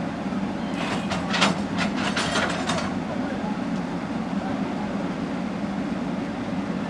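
A steady low engine drone with a quick run of metallic clanks and knocks about one to three seconds in, typical of heavy machinery working at a demolition site.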